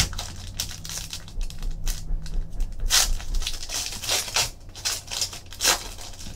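Foil wrapper of a Panini Contenders trading-card pack being torn open by hand, crinkling and tearing in a series of irregular bursts, the loudest about three, four and almost six seconds in.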